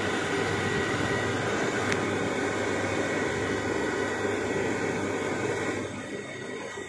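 Monoblock water pump's electric motor running steadily, freshly started after a rewind and a new mechanical seal and 6203 bearing, with a steady hum and a high whine; it runs well. A little quieter near the end.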